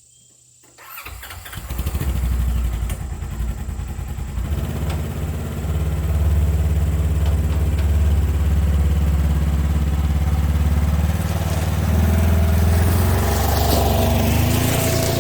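Side-by-side utility vehicle's engine starting about a second in, then running steadily.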